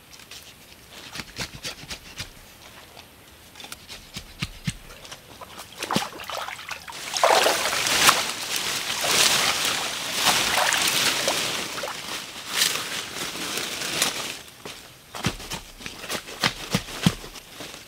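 Shallow muddy water sloshing and splashing around a person's legs as they wade, with scattered clicks and snaps of sticks. From about seven seconds in, louder rustling and crackling of leafy branches being pulled and handled.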